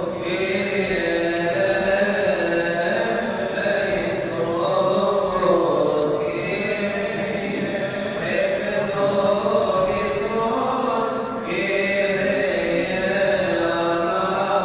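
A priest chanting a Coptic Orthodox liturgical hymn, one continuous melismatic melody with long held and gliding notes.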